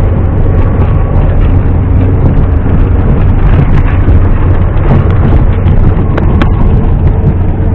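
ZAZ-968M Zaporozhets' air-cooled V4 engine running steadily as the car drives, with a few sharp knocks and rattles over it.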